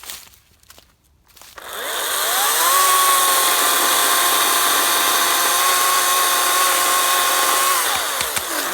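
Ryobi 40V 14-inch battery electric chainsaw, its electric motor and chain spinning up with a rising whine. It runs at a steady pitch for about five seconds, then winds down and stops.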